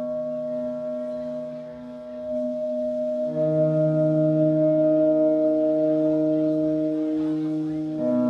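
Post-rock band playing live: a sustained, droning chord from electric guitar and bass, with no clear drum beats. The chord changes and swells louder about three seconds in, and shifts again near the end.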